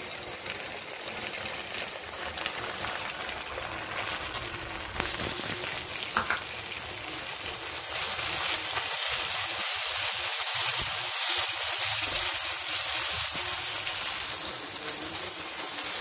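Fresh tomato puree sizzling in hot oil with fried onions and garlic in a frying pan, a masala being cooked down. The sizzle grows louder over the first half.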